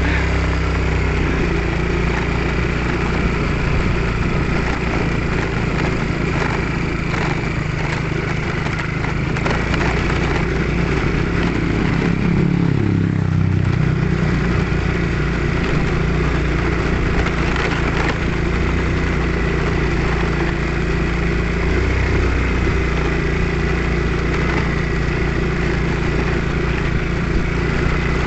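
Motorcycle engine running steadily while riding a rough road, its note dipping and coming back up about halfway through.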